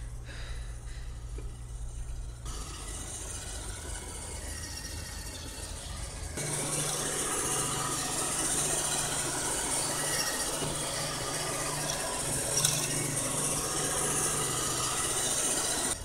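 iRobot Roomba robot vacuum running, its motor and brushes giving a steady mechanical whir that gets louder and fuller about six seconds in. There is a brief knock near the end.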